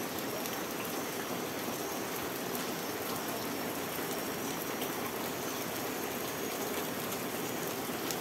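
Steady rain falling on a wooden deck and garden plants: an even hiss with scattered ticks of individual drops.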